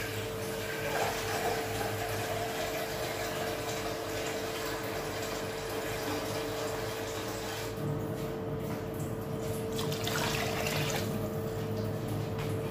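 Kitchen tap running steadily, water filling a vessel, over a constant hum.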